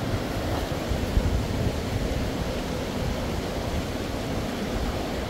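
Wind buffeting the microphone over a steady rushing noise of river water.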